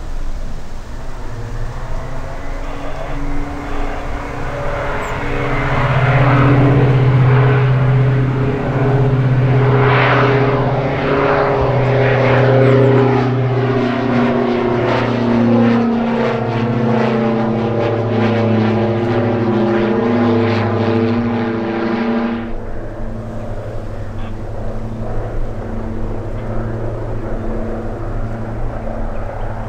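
Diamond DA-42 twin-engine propeller plane climbing out low overhead, its two engines loud and steady, the pitch sliding down as it passes about ten seconds in. The sound cuts off abruptly about 22 seconds in, leaving a quieter, steady hum from a helicopter.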